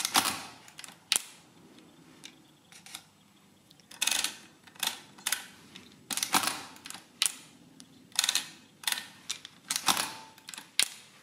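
Printing mechanism and large print lever of a Lipsia Addi 7 mechanical adding machine working through a series of sharp metal clicks and clacks. Each pull prints the number in the input register onto the paper roll and clears the input pins.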